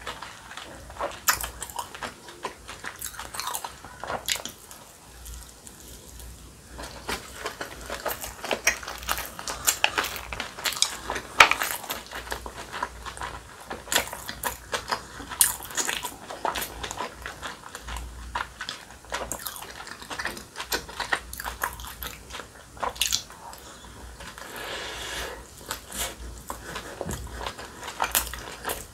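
Close-miked biting and chewing of a fried dumpling: steady crisp crunches and wet mouth clicks.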